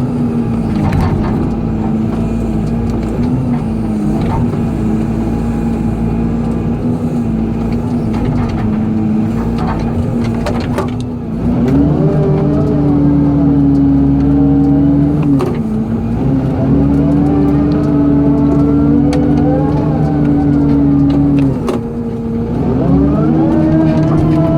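Excavator diesel engine running under hydraulic load, rising in pitch and dropping back in three cycles as the boom and bucket work.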